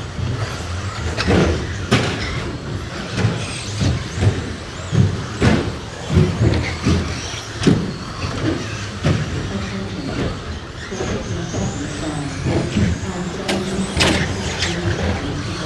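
Radio-controlled short course trucks racing on an indoor carpet track: high motor whines that rise and fall over tyre noise, with frequent sharp knocks and clatters from the trucks.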